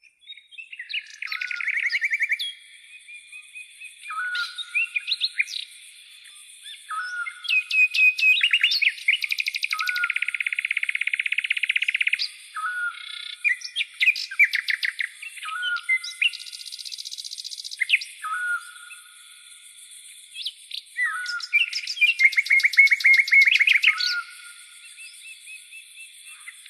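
Birds singing: fast chirps and rattling trills, loudest in two long runs, over a short note repeated about once a second. A faint steady high hiss lies behind.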